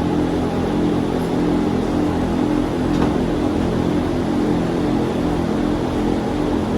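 A motor running steadily at an even speed, a constant low drone with no change in pitch.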